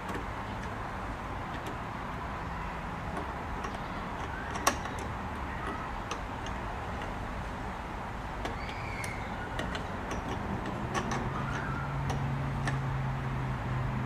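Small metal parts of a Singer 503A's bobbin case and hook assembly clicking and tapping as they are fitted by hand into their slot, with one sharper click a little before halfway. A low steady hum comes in over the last few seconds.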